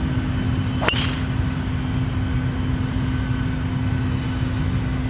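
A golf driver striking the ball off the tee: one sharp crack about a second in. Under it a steady low rumble with a constant hum.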